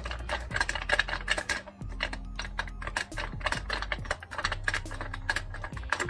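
Ratchet wrench clicking in quick runs of several clicks a second as a shock absorber mounting nut is turned, over a low steady hum.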